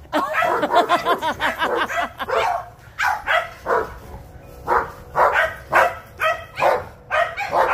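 Dogs barking and yapping in play: a quick string of short barks, then single barks about twice a second.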